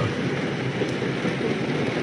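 Heavy rain beating on a moving car's roof and windows, heard from inside the cabin as a steady, even hiss, with a faint low hum of the car underneath.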